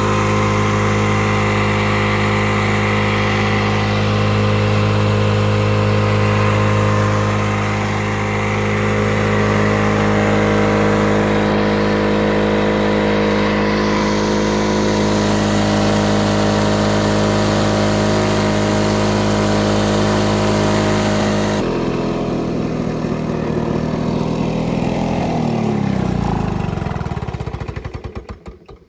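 The two-stroke engine of a 1979 Lawn-Boy R7268 mower running steadily at a constant speed. About three-quarters of the way through the sound changes suddenly, and the engine then slows with a falling pitch and dies near the end: its stop switch doesn't work, so it is shut down by cutting off the fuel.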